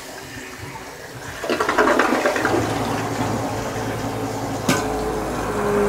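A 1.28-gallon-per-flush toilet flushing with its handle held down, water rushing into the bowl and swelling about a second and a half in. About two and a half seconds in, the Sanigrind Pro macerating pump starts up beneath it with a steady hum, pumping the flush water away.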